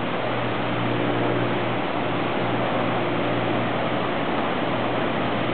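Whitewater rapids of the Zambezi River rushing in a constant, even wash of noise.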